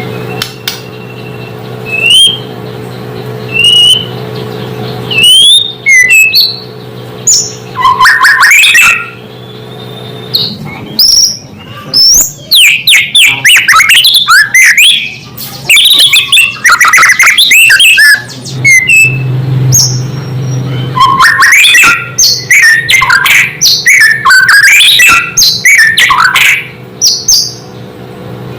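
White-rumped shama (murai batu) singing: loud phrases of clear whistles and rapid, varied chattering notes, coming in bursts with short gaps, over a steady low hum.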